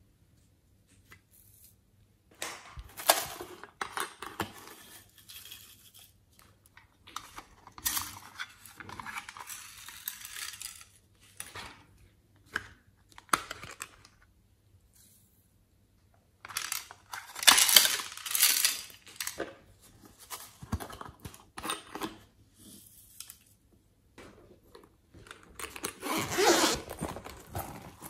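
Small plastic containers clicking and glitter, sprinkles and foam beads pouring and rattling into a glass dish, in four spells with sharp clicks between and short quiet gaps.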